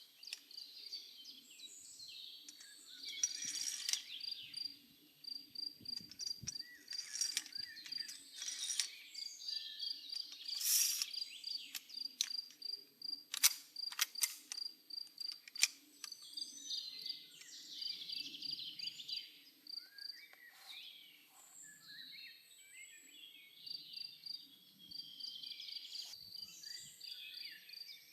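Woodland ambience: songbirds singing and chirping over a fast, even insect chirping, with a few sharp clicks.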